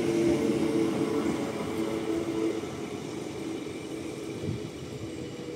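SNCB AM08 (Siemens Desiro ML) electric multiple unit running away along the track. Its traction equipment gives two steady whining tones that fade out after about two and a half seconds. Wheel and rail noise dies away as the train recedes.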